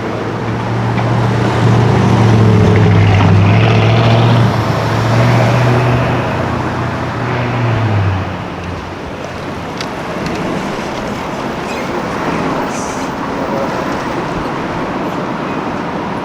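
A car engine running with a deep, steady note as the car passes close by, loudest a couple of seconds in and fading away about eight seconds in. After that there is steady street traffic noise.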